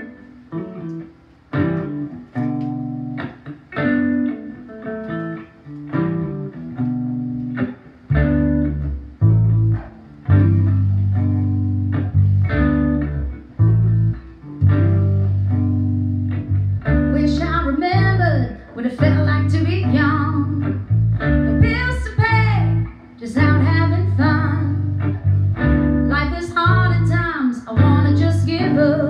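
Small band playing a song in a country-folk style. Strummed acoustic guitar opens alone, a bass guitar joins about eight seconds in, and a woman's voice starts singing a little past halfway.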